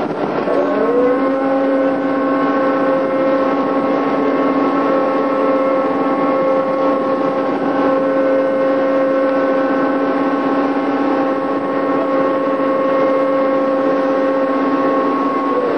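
Tugboat engine revving up about a second in, then running steady with a strong even tone before dropping back near the end, over steady background noise.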